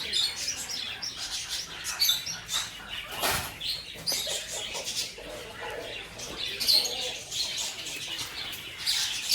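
Many caged birds chirping and calling at once in an aviary, with a short louder noise about three seconds in.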